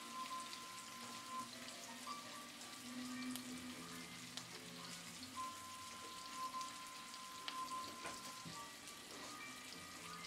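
White fish steak searing in oil in a nonstick frying pan: a light, continuous sizzle with fine crackles and spits. Soft held musical notes sound underneath.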